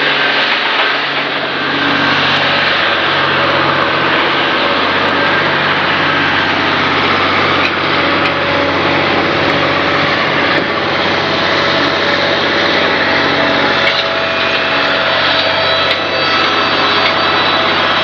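Sawmill machinery running steadily: a Wood-Mizer LT20 band sawmill sawing, with a constant electric-motor hum and whine underneath.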